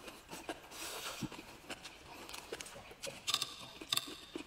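Close-up eating sounds: a mouthful of rice and pork belly being chewed, with wet lip smacks and soft mouth clicks coming irregularly.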